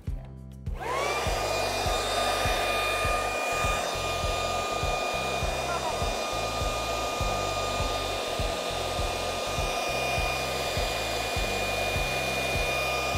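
Corded electric leaf blower switched on about a second in, its whine rising as it spins up, then running steadily: a rush of air with a high motor whine over it.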